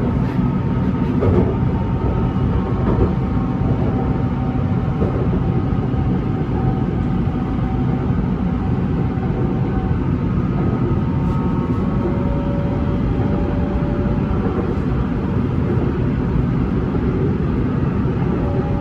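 BTS Skytrain car running along the track, heard from inside: a steady rumble of wheels on rail with a faint motor whine at a few steady pitches.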